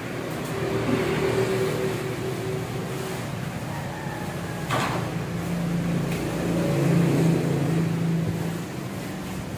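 Steady mechanical drone whose hum drops lower about halfway through, with a single sharp knock about five seconds in.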